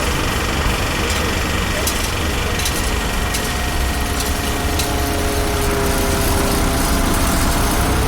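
Construction site ambience: heavy machinery engines running steadily with a low rumble, with a few sharp clicks in the first half.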